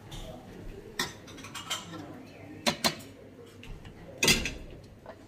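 A metal serving ladle clinking against a stainless-steel chafing dish as curry is served: about five sharp clinks, the loudest a little over four seconds in.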